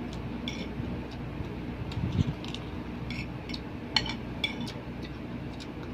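Light clinks of spoon, fork and dishes during a meal: scattered short, sharp taps at irregular intervals over a steady low hum, with one dull thump about two seconds in.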